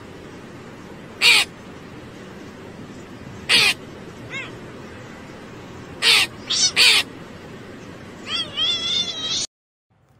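Crow cawing in short, loud, harsh calls, first singly, then three in quick succession, then a run of wavering calls near the end before the sound cuts off abruptly. A steady hiss of background noise lies under the calls.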